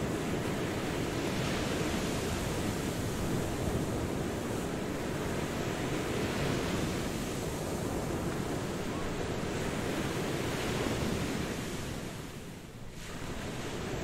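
Ocean surf washing onto a beach: a continuous rush of waves that swells and ebbs every few seconds, easing off briefly near the end.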